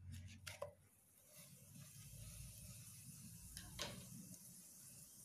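Faint sizzle of a pancake cooking in a nonstick frying pan, with a light click about half a second in as it is flipped with a plastic spatula, and another click near the end.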